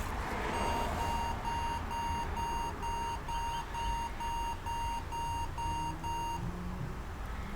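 Electronic beeper sounding a rapid train of short, evenly spaced, high-pitched beeps, about two a second, a dozen or so in all, stopping near the end.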